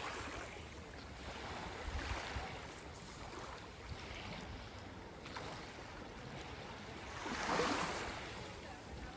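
Sea waves washing onto a beach: surf hiss that rises and falls in several swells, the biggest breaking about seven and a half seconds in.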